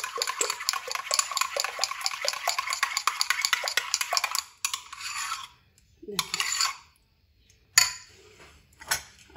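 Metal spoon beating yogurt in a ceramic bowl: a fast run of scraping clicks against the bowl that stops about four and a half seconds in, followed by a few single knocks.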